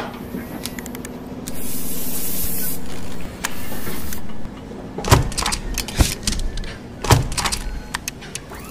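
Paint spraying in two long hissing bursts, about two seconds then about one second, followed by a run of mechanical clacks and thuds as the stencil machinery moves.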